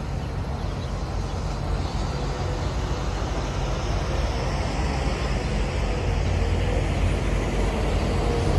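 Truck engines running as a semi tractor-trailer pulls away and a pickup towing a loaded car-hauler trailer drives closer. The engine noise is steady and grows louder toward the end.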